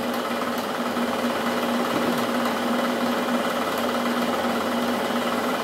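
Milling machine running steadily as it takes a cut under power feed, with a steady hum.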